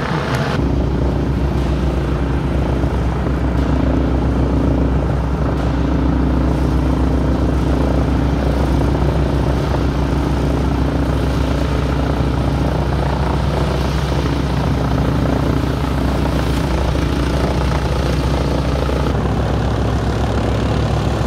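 Harvard Mk II's Pratt & Whitney R-1340 Wasp nine-cylinder radial engine running steadily at low power, with its propeller turning, while the aircraft sits or taxis on the ground. The pitch shifts slightly near the end.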